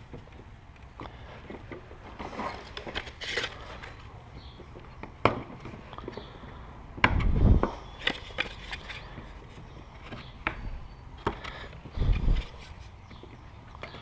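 Wooden beehive frame parts being handled and knocked together: scattered light clicks and knocks, with two heavier dull thumps about seven and twelve seconds in.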